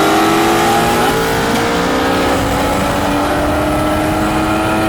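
Turbocharged 20B three-rotor rotary engine in a Mazda RX-7 at full throttle in a race pull, its pitch climbing steadily through the gears with an upshift about a second in.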